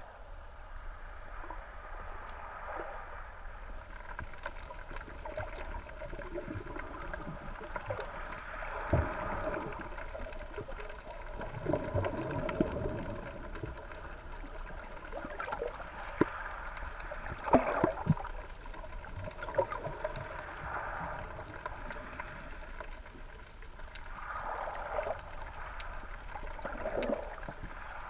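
Underwater ambience heard through a GoPro's waterproof housing: muffled gurgling and swashing of water surging, swelling and fading, with scattered clicks and knocks, a few louder ones about two-thirds of the way through.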